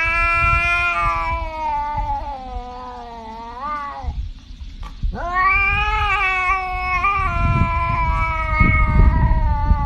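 Tabby cat yowling: two long drawn-out calls, the first bending upward at its end, with a pause of about a second between them.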